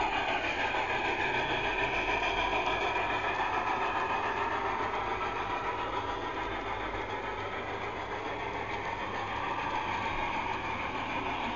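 Märklin model train's electric motor running with a steady whine that drifts gently up and down in pitch.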